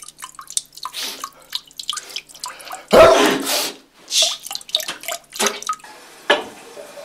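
A man urinating into a toilet, the stream splashing and dripping in irregular spatters, with a loud sneeze about three seconds in.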